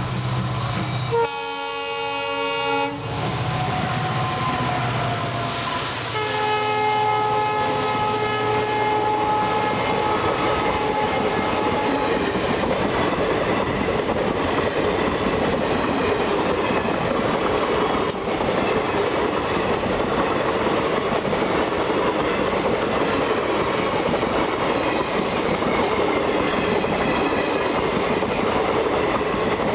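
Mahananda Express train sounding its horn twice, a short blast and then a longer one that fades away, then running past with a steady rumble of wheels over the rail joints. There is a single sharp click about halfway through the pass.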